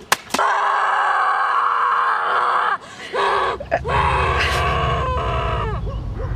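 A person's long, drawn-out yell, held for a couple of seconds, broken off briefly about three seconds in, then held again. A low rumble comes in underneath about four seconds in.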